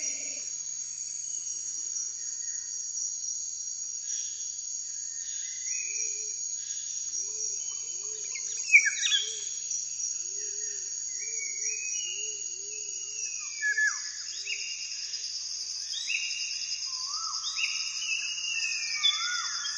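Tropical forest ambience: a steady high insect chorus with birds calling over it in whistles that fall and rise. A low, quick chirping repeats through the middle.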